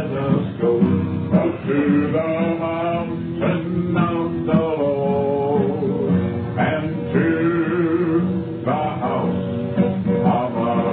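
A song with guitar and a singing voice.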